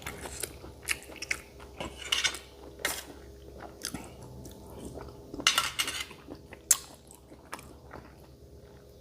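Close-up mouth sounds of a person biting and chewing spicy cow's-foot salad: irregular crunchy clicks and short crackles, loudest about two seconds in and again around five to seven seconds in.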